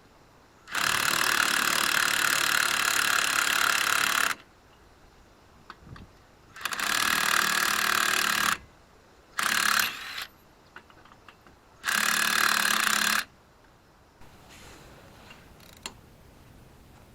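Cordless impact wrench hammering on truck wheel lug nuts in four bursts: a long one of about three and a half seconds, then three shorter ones, each starting and stopping abruptly.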